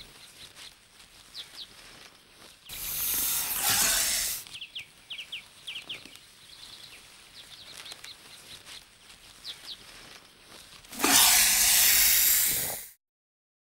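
Snake hissing: two loud breathy hisses of about two seconds each, one a few seconds in and one near the end, with short high bird chirps in between. The sound cuts off abruptly to silence just before the end.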